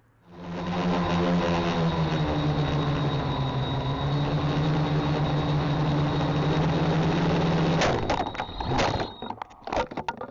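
Emax Nighthawk 280 Pro quadcopter's motors and propellers starting up and running with a steady whine. Near the end they break off into a crash: a quick run of knocks and clatters, then the sound cuts off.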